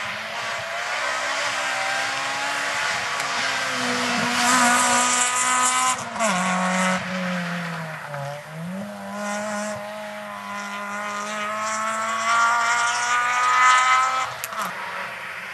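Rally car engine being driven hard, the revs climbing in long pulls, cutting back sharply about six seconds in, dipping low, then climbing again through the gears.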